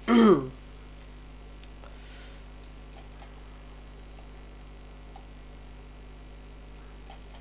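Steady low mains hum with faint hiss from the recording, broken by a few faint, scattered clicks of a computer mouse.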